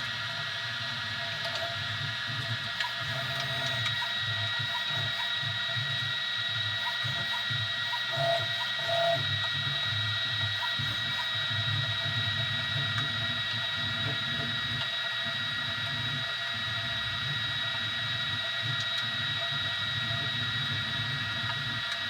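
Easythreed X2 desktop 3D printer running a print: its stepper motors whir with a steady high-pitched whine, and a couple of short tonal chirps come about eight seconds in as the head moves.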